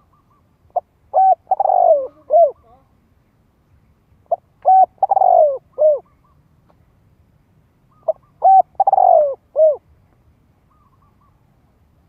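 Spotted dove singing its cooing song: three phrases about three and a half seconds apart, each a few short coos around a longer rolling note, ending on a falling coo.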